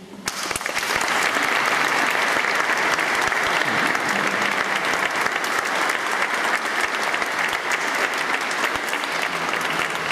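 Audience applauding. Many hands start clapping suddenly just after the start and keep up a steady applause.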